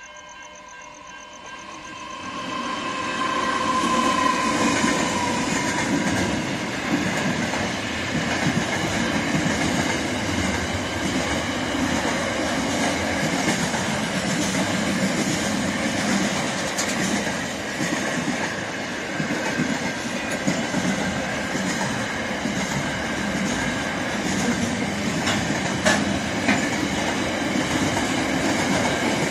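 Freight train passing close by at speed: a steady rumble and wheel clatter over the rails that builds over the first few seconds as the train arrives and then holds. Level crossing bells ring at the start and are soon drowned out by the train.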